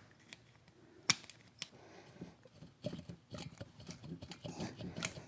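A wrench working on the cylinder nuts of a BSA Starfire motorcycle engine: quiet metal-on-metal clicks and light scraping. The sharpest click comes about a second in, with another shortly after and one near the end.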